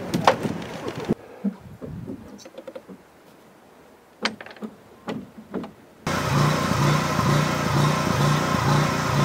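A few scattered clicks and knocks at low level, then, about six seconds in, an engine starts to be heard abruptly and runs steadily at idle, with a low pulsing about twice a second.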